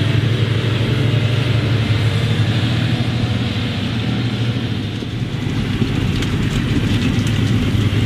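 Fendt tractor's diesel engine running steadily under load as it pulls a heavy forage wagon full of chopped maize up a stubble-field slope, with light rattles from the wagon in the last couple of seconds.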